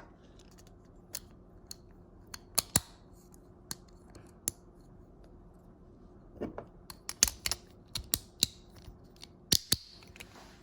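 Hard plastic Beyblade parts clicking and snapping as they are handled and pressed together, an F gear being fitted onto a top. Scattered sharp clicks, coming thicker in the second half.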